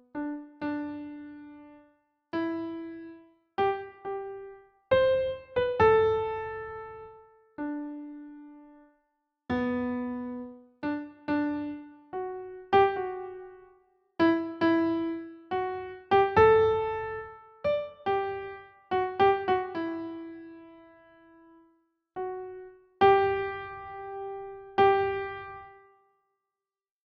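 Slow, gentle solo piano melody: single notes and short phrases that ring out and fade, with brief silent pauses between them.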